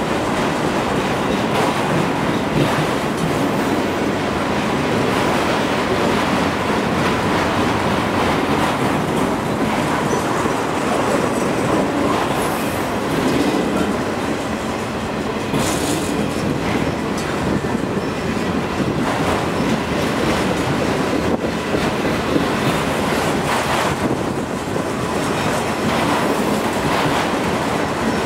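Freight train's autorack cars rolling steadily past on the rails, with some wind noise on the microphone.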